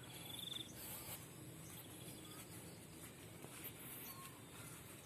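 Faint outdoor ambience with insects chirring: a short rapid trill in the first half-second, then a few brief faint high chirps over a low steady hiss.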